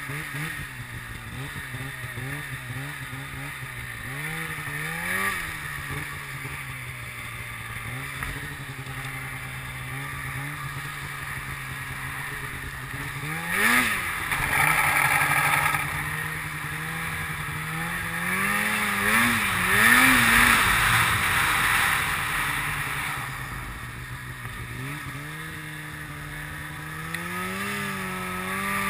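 Polaris snowmobile engine running at a steady cruise, with short throttle blips that swoop the pitch up and back down every few seconds. A louder rushing noise comes in for a few seconds around the middle, and the engine pitch climbs steadily near the end as the sled speeds up.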